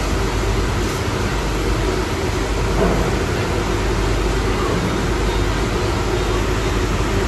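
Steady din of vehicle engines running on a ferry's enclosed vehicle deck, with trucks and motorcycles waiting to drive off the ship.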